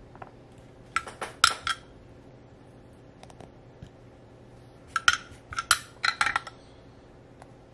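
Sharp, ringing metallic clinks in two short clusters, a soldering iron knocking against its metal stand and brass tip cleaner as it is wiped and set down.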